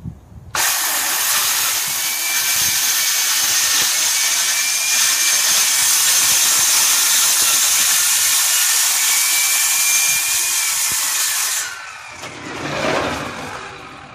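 Circular saw with a carbide-tipped blade cutting aluminum diamond plate: a loud, harsh, hissing screech that starts suddenly and runs steadily for about eleven seconds, a little violent as the sheet pulls away from the blade. The cutting noise then stops sharply, followed by a brief lower swell.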